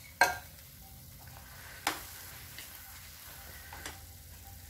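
Steel spoon stirring thick bread halwa in a nonstick frying pan, knocking against the pan three times, over a steady faint sizzle of the halwa frying in ghee.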